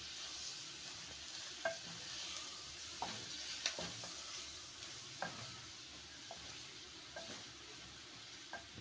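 Tripe frying with onions and tomatoes in an aluminium pot, sizzling steadily while a wooden spoon stirs it, the spoon knocking against the pot about six times.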